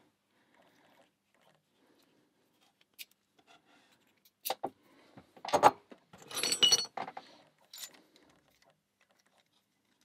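Metal lock cylinders and keys clinking and jangling as they are handled on the bench: a few separate clicks, then a burst of ringing clinks around the middle.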